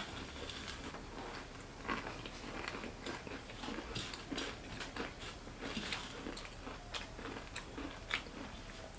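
Mouths chewing and crunching crisp bhujia namkeen, many short irregular crunches.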